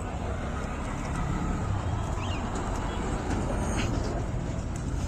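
Steady low rumble of passing road traffic, swelling a little in the middle, with a few faint light clicks.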